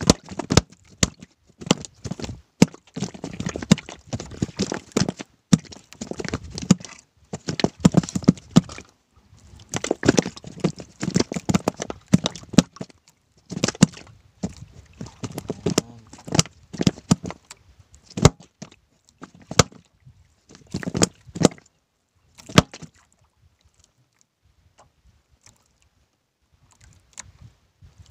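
Nylon fishing handline being hauled in hand over hand: repeated rustling and scraping of the line in bursts, with irregular sharp clicks and knocks. It stops a little over three-quarters of the way through, leaving only faint noises.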